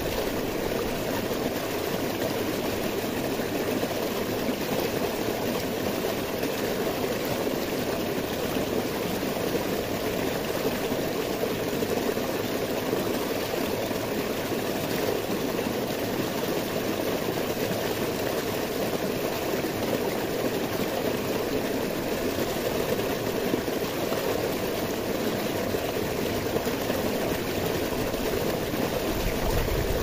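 Stream water cascading and splashing over boulders in a small rocky falls: a steady, unbroken rush.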